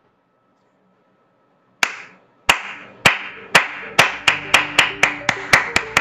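Near silence, then hand claps about two seconds in: one by one at first, then speeding up to about four a second, with faint music tones underneath.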